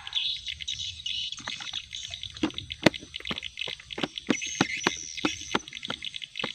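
Fish feed being scattered by hand from a plastic tub onto a lake: an irregular run of short sharp clicks and small plops, several a second, starting about a second and a half in, over a steady high background hiss with a few bird chirps.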